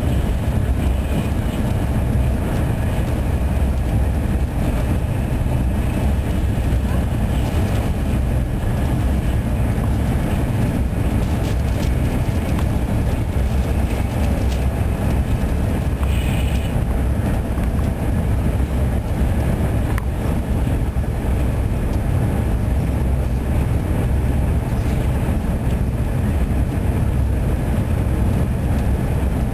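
Passenger train running steadily at speed, heard from inside the carriage: an even, continuous low rumble of wheels on rails and running gear.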